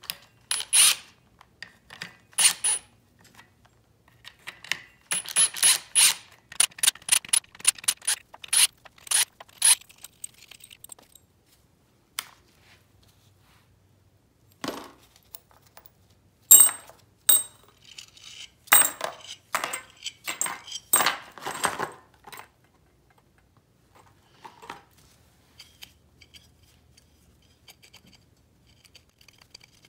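Sharp, irregular metallic clicks and clinks of bolts and clutch springs being taken off a Honda ATC200X clutch lifter plate with hand tools and set down. They come in a busy run through the first ten seconds and again around 17 to 22 seconds in.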